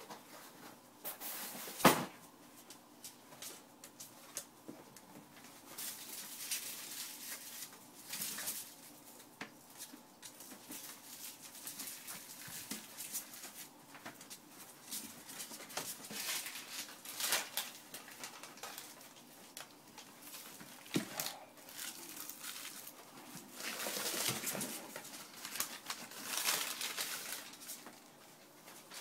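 Boston Terrier puppies moving about on blankets and puppy pads in a plastic kiddie pool: scattered rustling and shuffling throughout, with one sharp knock about two seconds in.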